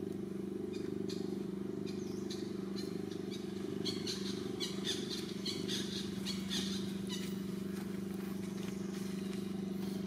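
A steady low mechanical hum, like an engine running, with a run of short high chirps from about one to seven seconds in.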